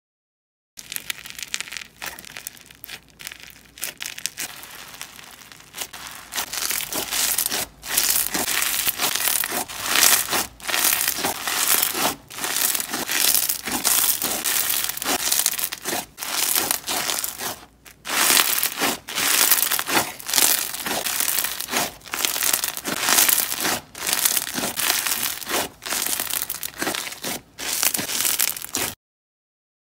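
Hands squeezing and pressing a dark, speckled textured slime, giving a run of crackling, squishing presses a second or two long with short breaks between them. It starts about a second in and stops just before the end.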